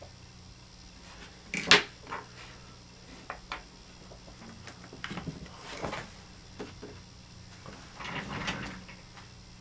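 Small hand tools and plastic RC car parts being handled and set down on a hard work surface: a run of separate clicks and light clatter, the sharpest click about two seconds in.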